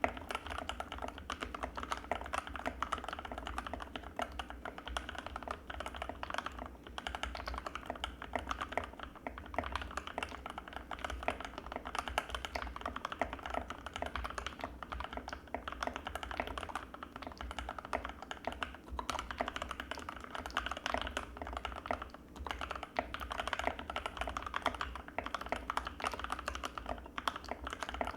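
Continuous fast typing on an Anne Pro 2 mechanical keyboard with Gateron Red linear switches: a dense, unbroken stream of keystroke clacks.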